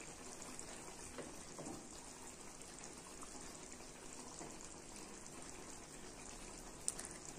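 Faint bubbling of a thick, reduced tamarind and turkey-berry gravy simmering in a metal kadai, with a wooden spatula moving through it; a small click near the end.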